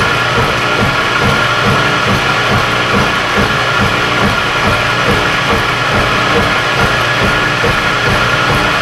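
Vertical milling machine taking a heavy cut in steel: a steady machining noise with a high whine and a low pulse repeating a few times a second.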